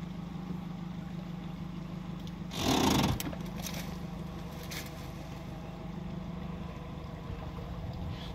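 Boat engine idling steadily with a low hum. About two and a half seconds in there is a short, louder rush of noise lasting under a second.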